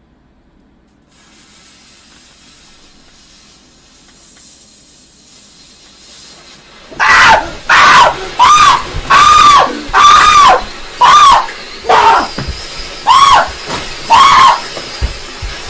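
Firework fuse hissing faintly, then about seven seconds in a whistling firework lets out a run of loud shrill whistles, about ten of them, each rising and falling in pitch.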